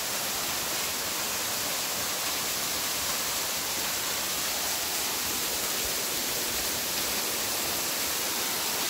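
Steady hiss of a thin waterfall pouring off a rock ledge and splashing onto rocks below.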